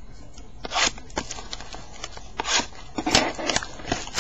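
Baseball card packs being handled: the foil wrappers crinkle and rustle in short, irregular bursts, with light clicks and taps of packaging.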